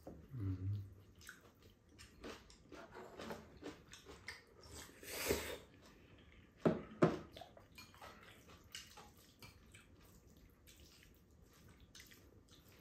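Close-up eating sounds: jjajang ramen noodles being slurped and chewed, with irregular wet smacks, a longer slurp about five seconds in, and a couple of sharper sounds about a second and a half later.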